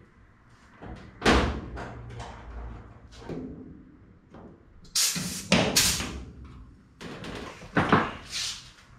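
Aluminium aircraft parts being handled and fitted into a sheet-metal fuselage: about four loud metallic clanks and thumps, with quieter scraping and rustling between them.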